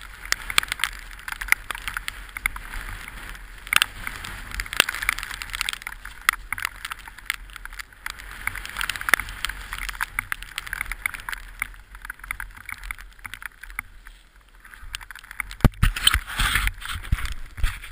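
Orange 223 downhill mountain bike rolling fast over a wet, rough trail: a steady hiss of tyres on mud and grit with frequent rattles and knocks from the bike. Near the end a sharp knock is followed by louder scraping and rumble as the bike goes down on loose gravel.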